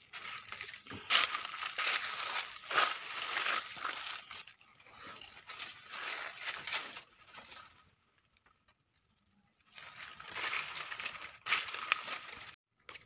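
Cacao tree leaves and branches rustling in bursts as a hand reaches in among them to pick pods, with a pause of about two seconds past the middle.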